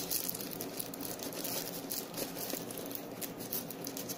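Hands handling a smartwatch in its grey wrapping inside a small cardboard box: soft rustling with many small clicks and ticks, the sound of working the watch loose from its packaging.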